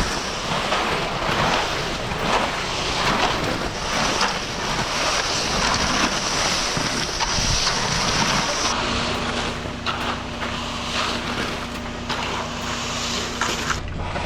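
Wind rushing over the microphone, with a truck engine running underneath. From about two-thirds through the wind eases and a steady low engine hum stands out.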